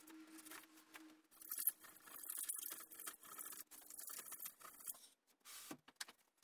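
Insulation cutting knife scraping through a polyiso rigid foam board in faint, scratchy strokes with short pauses between them.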